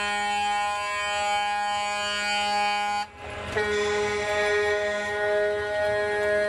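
Truck air horn sounding two long, steady blasts, the second starting about half a second after the first stops and a little different in tone.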